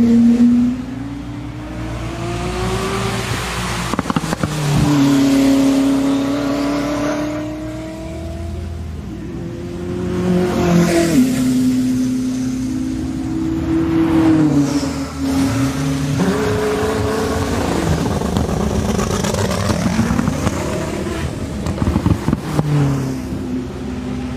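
Koenigsegg Jesko's twin-turbocharged V8 being revved repeatedly, its pitch climbing and falling back several times and settling to a steady idle in between.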